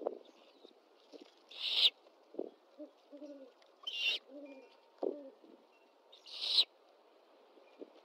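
Great horned owlets giving three loud, raspy begging screeches about two seconds apart, each swelling and then cutting off. Between them come soft, low hoots from an adult great horned owl and a couple of short knocks from movement in the nest.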